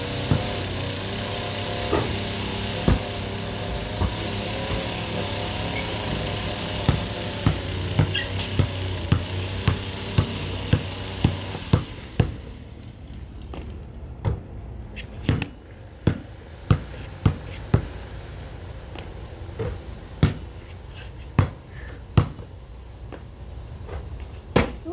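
A basketball bouncing on concrete, sharp repeated thuds, over a small lawn mower engine running steadily that cuts off about halfway through; after that the bounces stand alone.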